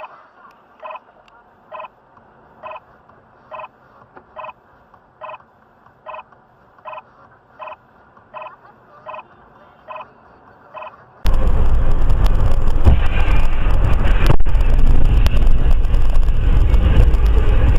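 Regular electronic ticking inside a car, a little more than one tick a second, over faint background. About eleven seconds in it cuts abruptly to a loud, dense rush of road and wind noise with crackles and one sharp crack.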